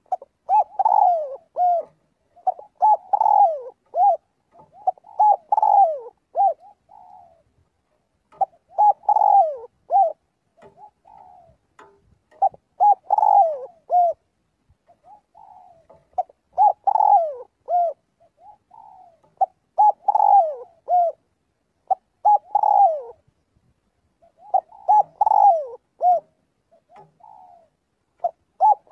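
Spotted dove cooing: a run of short multi-note coo phrases with falling notes, repeated every two to four seconds.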